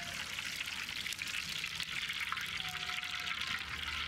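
Cooking oil poured from a steel vessel into a hot black iron kadai over a wood fire, with a steady crackling sizzle and spatter as it hits the pan.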